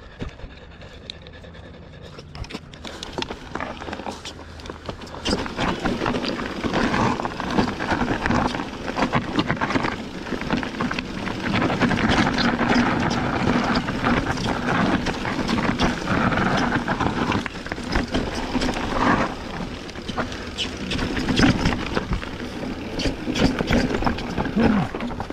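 Mountain bike riding down a rough trail: tyres on dirt and stones with many quick knocks and rattles from the bike. Quieter for the first couple of seconds, then much louder.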